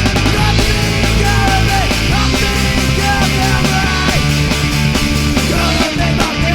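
Loud rock music with distorted guitars, a steady beat and a lead line on top.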